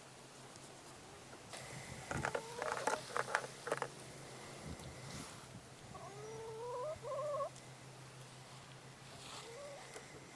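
Chickens vocalising: a few short clucks about two seconds in, then a longer call rising in pitch around the middle.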